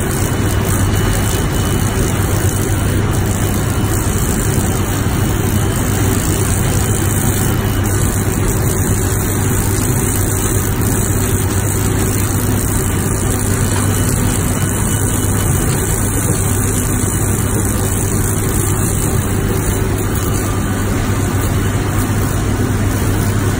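Steady, loud industrial drone of a running raw mill and its drive machinery, a deep even hum, mixed with the continuous hiss of a high-pressure spray gun jetting cleaning liquid onto the mill's base.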